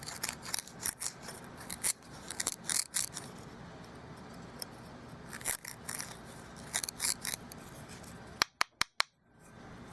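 Knife blade cutting and scraping into a dry yucca-stalk hearth board in bursts of short, crisp strokes, carving the spindle socket. Four sharp clicks in quick succession about a second before the end.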